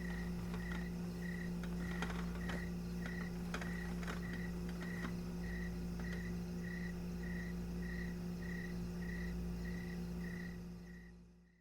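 A cricket chirping at night in an even rhythm, a short high chirp about every 0.6 seconds, over a steady low electrical hum. The ambience fades out near the end.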